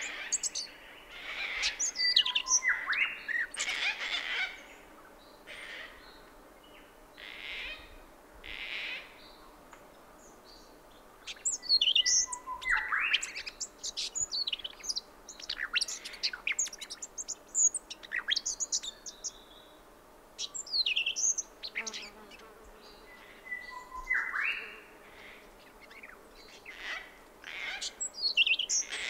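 Brown thornbill singing: bursts of rapid, high twittering notes with quieter gaps between, among a background chorus of other birds including gang-gang cockatoos, a grey shrike-thrush and honeyeaters. Several short harsh, rasping calls are mixed in.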